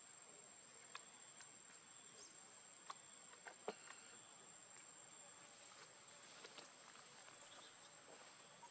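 Near silence with a faint, steady high-pitched insect trill and a few soft scattered clicks, the sharpest a little under four seconds in.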